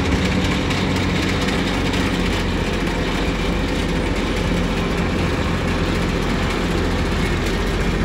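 Loud, steady engine of a miniature 'Lil Bud' four-wheel-drive show tractor running as it drives past.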